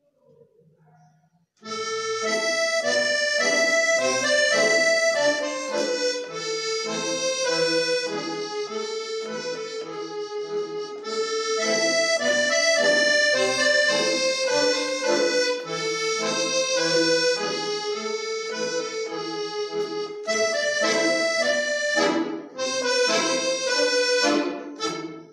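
Piano accordion playing a melody over chords. It starts abruptly about a second and a half in, after a moment of near silence.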